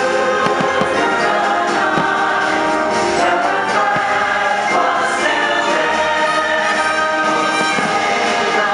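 Choir singing with an orchestra: the patriotic American folk-song soundtrack of a fireworks show, with a few faint firework thuds underneath the music.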